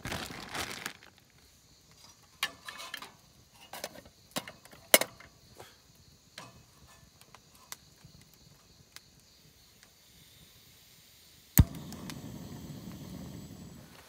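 Metal clinks and knocks of a mess tin and its lid being handled and set on a camping gas stove. Near the end, one sharp click of the stove's igniter, followed by the steady rush of the lit gas burner.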